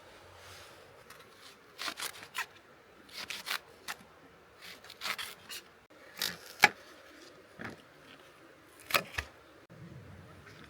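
Irregular short scrapes and rustles, about eight in ten seconds, with one sharp click about six and a half seconds in.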